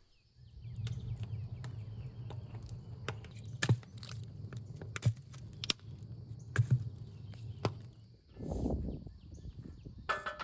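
Wood fire burning inside a tandoor: a steady low rumble with sharp crackling pops every second or so. A louder rough thud comes about eight seconds in, and a short metallic clink near the end.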